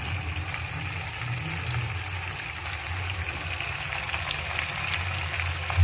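A steady low machine hum with a faint steady high whine above it.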